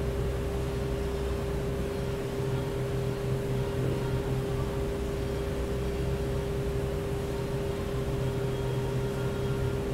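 A steady mechanical hum: one constant mid-pitched tone over a low drone, unchanging throughout.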